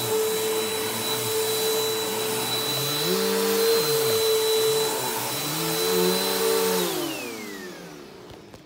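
Bissell PowerForce Helix upright vacuum running with a steady motor whine, a lower droning tone coming in twice midway, then switched off about seven seconds in, its motor winding down with a falling whine.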